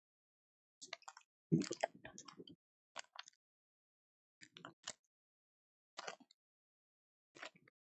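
Trading cards and pack wrappers being handled: short rustles and taps in half a dozen brief bursts, the longest about a second and a half in.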